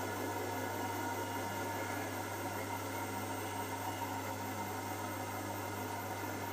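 Hotpoint NSWM 843C inverter-motor washing machine running a high-speed spin with an empty drum, a steady even hum and whir. The owner wonders whether the drum bearings are starting to go.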